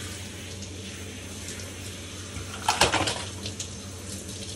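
Bathtub faucet water running steadily, with a short louder noise about three seconds in.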